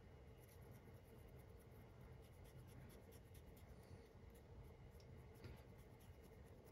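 Faint, rapid scratching of a stiff flat brush's bristles flicking back and forth across a miniature figure while dry-brushing paint onto it.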